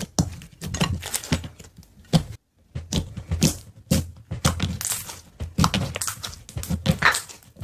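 Slime being squeezed and pressed by hand, giving a quick, irregular run of sharp crackling pops, several a second.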